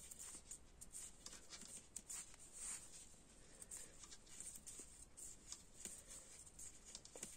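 Faint, irregular soft clicks and rustling of knitting needles and yarn as stitches are worked by hand.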